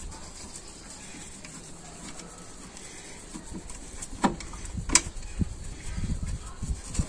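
Metal handling noise as a brake caliper is held on the hub and its mounting bolt is fitted by hand: two sharp clicks about four and five seconds in, then a few soft knocks.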